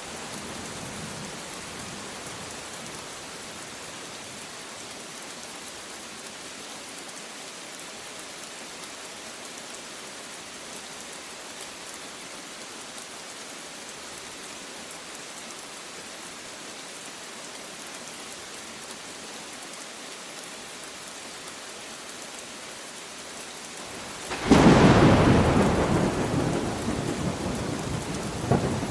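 Steady rain falling, then about 24 seconds in a sudden loud clap of thunder that rumbles and slowly fades.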